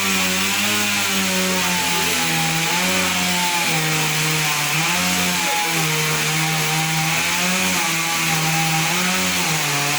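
Chainsaw engine running steadily through a cut in a tree, its pitch dipping and recovering several times as the chain bites into the wood.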